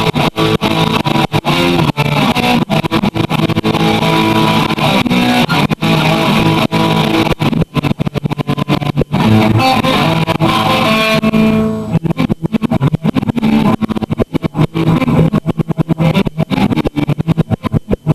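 Electric guitar jamming, held notes and chords, with the audio cutting out in many brief dropouts.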